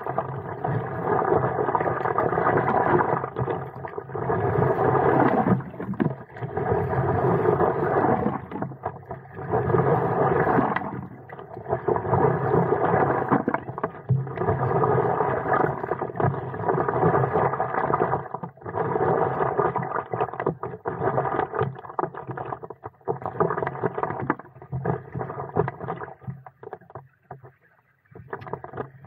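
Water rushing and splashing around the nose of a stand-up paddleboard, swelling and fading with each paddle stroke every two to three seconds. It dies down near the end as the board slows.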